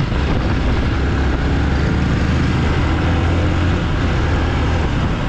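Motorcycle riding along a road: its engine drones steadily under the rush of wind on the microphone.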